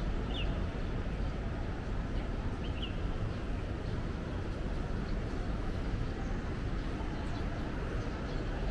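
City street ambience: a steady, even hum of traffic and city noise, with a few brief high chirps about half a second in and again near the three-second mark.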